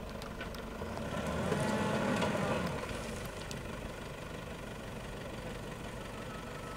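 SUV engine idling at the crest of a steep sand dune, its note swelling briefly about a second in, then settling back to a steady idle.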